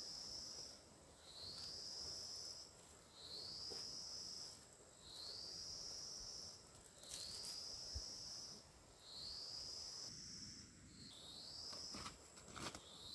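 An insect calling in an even, repeated phrase: a buzzy, high call about a second long that rises and then holds, coming back about every two seconds. Near the end, a few rustling steps through grass.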